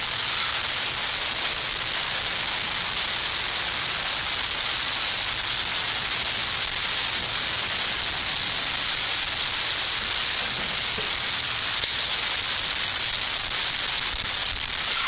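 Steady hiss of small camp-stove flames burning under pots of water, with a single click about twelve seconds in.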